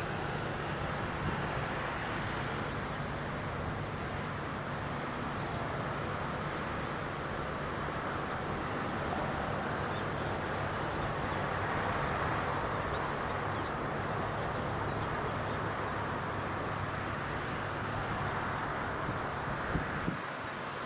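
Rice combine harvester running steadily: a constant low engine hum under a wash of machine noise, with faint short high chirps now and then.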